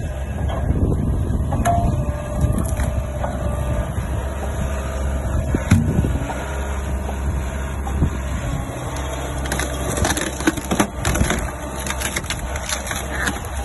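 JCB Hydradig wheeled excavator's diesel engine running steadily while its hydraulics drive a Lasco Roli 10K screw cone splitter. In the second half, as the cone bores into a log, a run of sharp cracks and clicks comes through over the engine.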